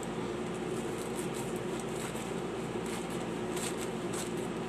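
Scissors cutting through a thin plastic courier pouch: faint, irregular snips and crinkles of the plastic over a steady low hum.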